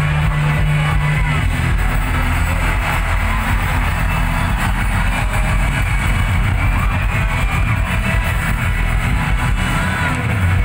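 Live rock band playing loudly through a concert PA, heard from the crowd, bass-heavy and without a break.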